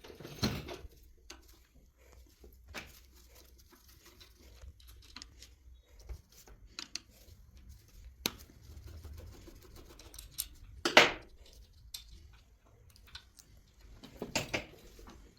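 Scattered clicks, scrapes and rustles of starter-motor parts and tools being handled, with a louder clatter about eleven seconds in and another near the end.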